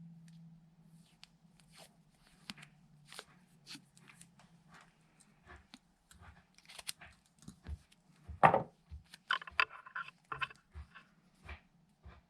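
Irregular clicks, taps and light knocks of hands handling tools and parts, with one sharper knock about eight seconds in followed by a short rasping scrape.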